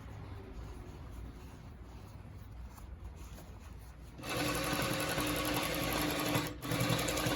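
Industrial single-needle chain stitch sewing machine. A low motor hum for about four seconds, then the machine starts up and sews at a steady high speed, with a brief let-up about two seconds later, stitching a jeans hem over the double seam.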